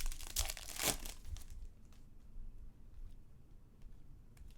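Rustling and crinkling of trading card packs and cards being handled, loudest in the first second or so and then fainter.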